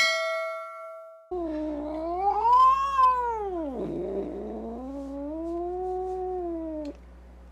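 A ringing tone fades out in the first second. Then an angry cat yowls: a long drawn-out caterwaul that rises and falls in pitch, dips about halfway and swells again lower before it stops, over a steady low hum.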